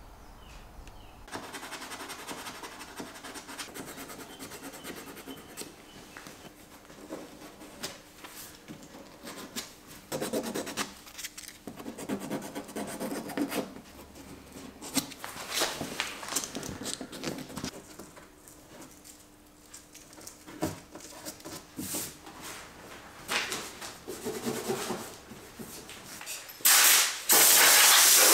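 Hand rubbing and light sanding on a primed body panel, with irregular scraping strokes that come and go. About two seconds before the end, a loud steady hiss of compressed air starts, pauses briefly, then carries on.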